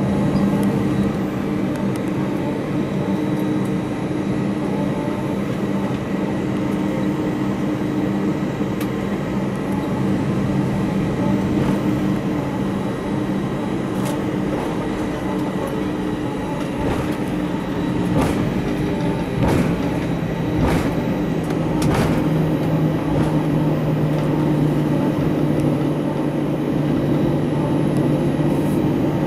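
Cabin noise of an Airbus A319 taxiing: a steady engine hum carrying a couple of low tones, with scattered knocks and rattles in the middle stretch. The lower tone drops slightly about two-thirds of the way through.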